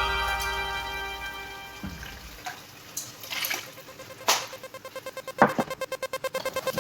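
Background music: a chord dies away over the first two seconds, then a few scattered clicks and knocks. An electronic track with a fast, even pulsing beat starts about five and a half seconds in.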